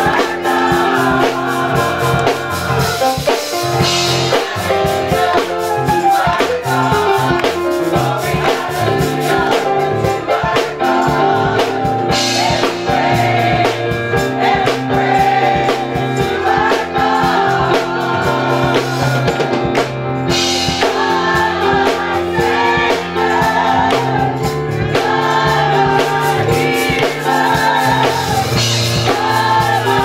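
Mixed choir of men and women singing a gospel song in several parts at once.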